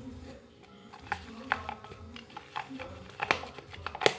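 Soft homemade slime being kneaded and stretched by hand, giving a few irregular wet clicks and pops, the loudest near the end.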